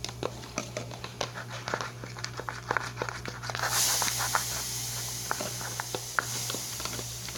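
Homemade slime being stirred and squished: a rapid, irregular run of small wet clicks and snaps, with a steady hiss that sets in about halfway through.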